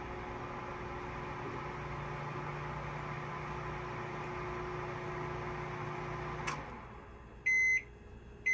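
Rival RGST902 900-watt microwave oven running empty: a steady hum with fan noise that stops with a click about six and a half seconds in, followed by two loud beeps about a second apart, the oven's end-of-cycle signal.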